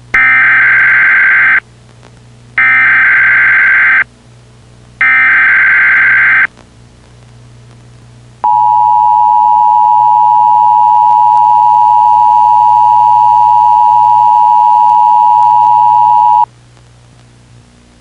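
Emergency Alert System tones: three bursts of SAME header data tones, each about a second and a half long, followed by the two-tone attention signal, a loud steady dual-pitched tone held for about eight seconds that cuts off sharply.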